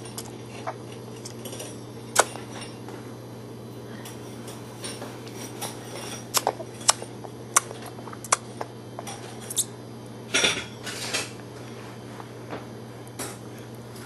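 Scattered sharp clinks and taps of a fork against a dish during a baby's meal, about a dozen spread out, with a short scraping cluster about ten seconds in, over a steady low hum.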